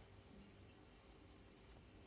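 Near silence: faint room tone with a steady hiss.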